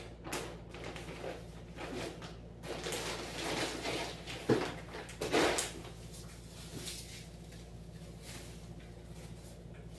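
Clear plastic packaging bag rustling and crinkling as a wetsuit is pulled out of it, the loudest crinkles about four and a half to five and a half seconds in. Afterwards only a faint steady hum.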